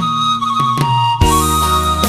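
Instrumental introduction of a Thai folk-style song: a flute-like melody over bass, with a bass line and beat coming in about a second in.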